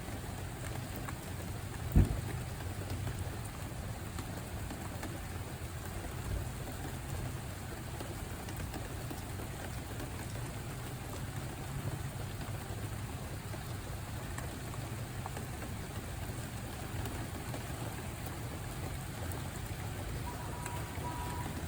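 Steady rain falling. There is a single sharp thump about two seconds in, and a faint, evenly pulsed beeping starts near the end.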